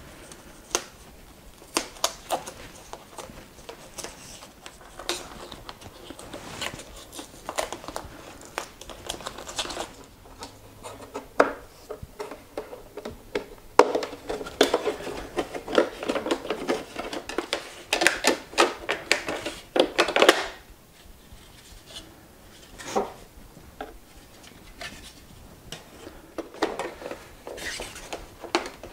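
Plastic shell and trim of a Gotway Mten3 electric unicycle being handled and pried apart during disassembly: scattered clicks and knocks, with a stretch of dense scraping and rattling about halfway through.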